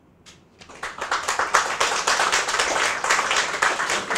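Audience applauding: a first clap or two, then full, dense clapping from about a second in.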